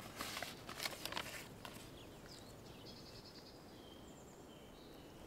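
Paper rustling for the first couple of seconds as a creased poster is handled, then faint bird chirps.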